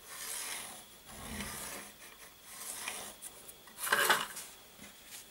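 Pencil scratching lines on a bare wooden board along a metal ruler, several drawn strokes, then a louder scrape about four seconds in as the ruler is slid across the board.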